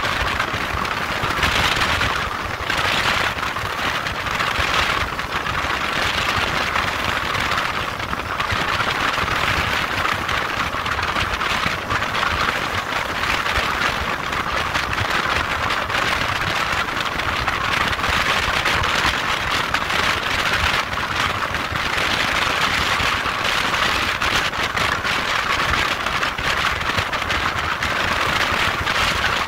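Steady rushing noise of a motorcycle in motion: wind and road noise on the onboard microphone, surging slightly every second or two early on and then even.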